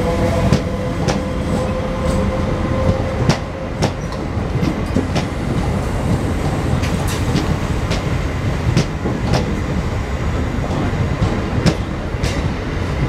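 Indian Railways passenger coaches rolling past close by: a steady rumble of wheels on rail, broken by repeated sharp clacks as the wheelsets cross rail joints. A thin whine fades out about three seconds in.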